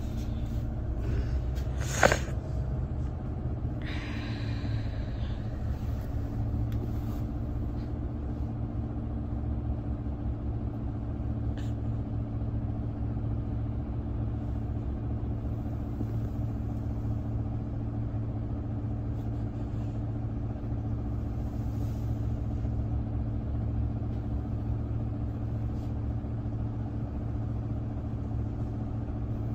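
Low-floor city bus engine idling steadily while the bus stands still, heard inside the cabin. There is a sharp click about two seconds in, the loudest moment, and a brief hiss a couple of seconds later.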